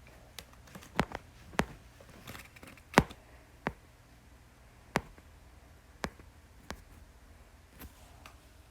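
Scattered sharp clicks and light knocks, about eight at uneven spacing, with the loudest about three seconds in, over a quiet room background.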